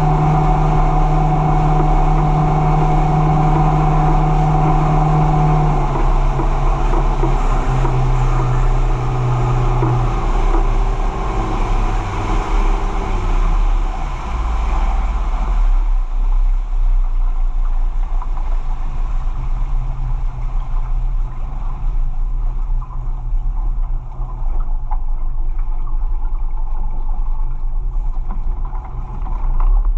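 Fishing boat's engine running at speed with water and wind rushing past, then throttled back in steps from about six seconds in; by about sixteen seconds it has settled to a low rumble as the boat slows.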